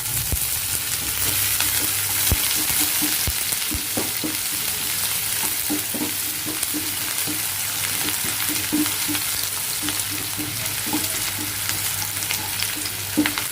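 Sliced onions and garlic sizzling in hot oil on high flame while a spoon stirs them, with frequent short taps and scrapes against the pan.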